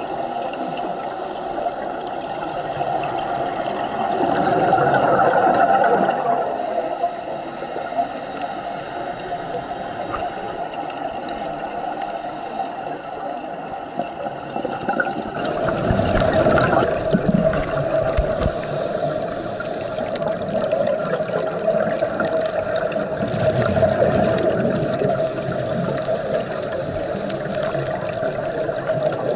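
Underwater sound of a scuba diver breathing out through a regulator, the exhaled bubbles gurgling in two louder bursts about four and sixteen seconds in, over a steady background drone.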